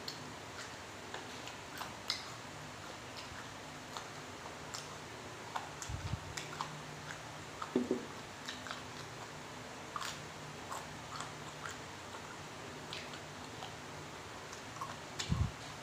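Close-up mouth sounds of a person biting and chewing fried chicken: scattered wet smacks and small clicks. There are two low thumps, one about six seconds in and one near the end.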